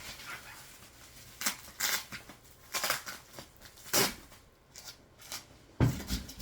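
Bubble wrap and packing tape being pulled away and crinkled by hand in irregular short rustles, with a knock near the end.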